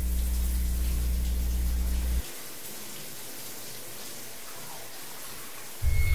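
Running water in a bathtub, a steady hiss, under a loud low drone that cuts off suddenly about two seconds in. Near the end a deep rumbling drone comes in abruptly.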